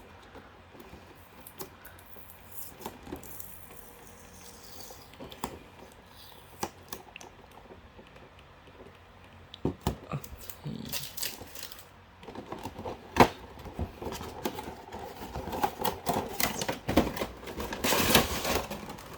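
Cardboard toy box and its packaging being opened by hand: scattered clicks and taps at first, then denser crinkling and rustling with sharp clicks in the later part.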